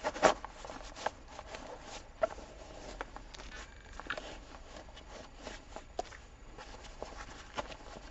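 Rustling and scraping of a nylon buttpack's fabric as small fire-making items are pushed into one of its pockets, with scattered light clicks and knocks; the loudest knock comes just after the start.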